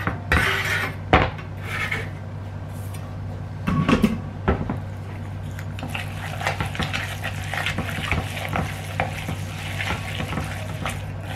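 Chopsticks stirring and beating ground fish paste mixed with chopped spring onions in a plastic bowl: a dense run of quick small wet slaps and clicks from about halfway in. Before that come a few sharp knocks as a knife scrapes the chopped spring onions off the wooden cutting board.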